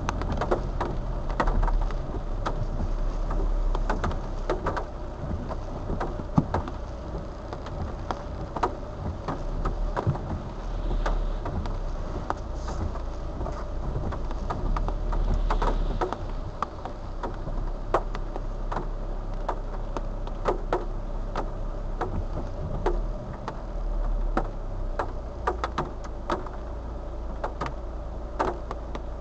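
Rain falling on a car's windshield and roof, heard from inside the car: many separate sharp drop impacts over a steady low rumble.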